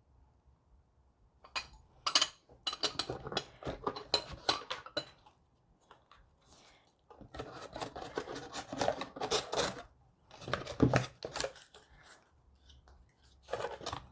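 Le Creuset stoneware mini cocottes and their lids clinking and knocking as they are handled and set into a cardboard box, with cardboard rustling and scraping. The handling comes in irregular bursts of clicks, with a short pause about halfway.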